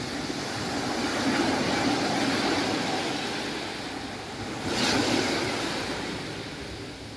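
Small waves breaking and washing up a sandy beach, the surf swelling and easing, with a louder, sharper surge about five seconds in.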